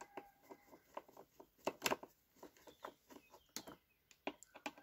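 Screwdriver backing out a screw that holds a motorcycle's stepper motor (idle air control valve) to its throttle-body housing: a string of faint, irregular small clicks and creaks.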